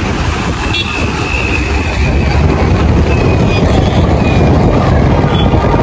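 Wind rushing over the microphone of a pillion rider on a moving motorbike, with the bike's engine and road traffic running underneath.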